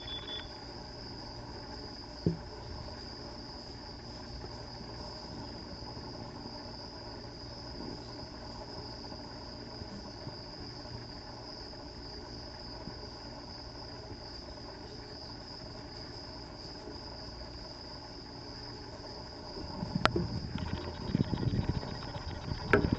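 A steady high-pitched tone over a faint even hiss, with a single click about two seconds in. Near the end come louder rustling and bumps.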